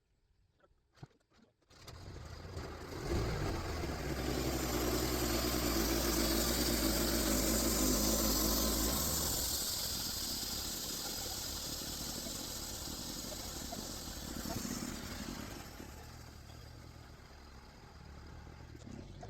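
Portable band sawmill running, its engine and band blade cutting through a pine log. The sound comes in after a second and a half of near silence, is loudest a few seconds later with a steady engine drone and high blade hiss, then eases off for the rest of the cut.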